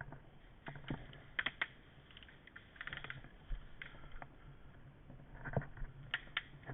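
Faint, scattered sharp clicks and taps, two close together about a second and a half in and two more near the end.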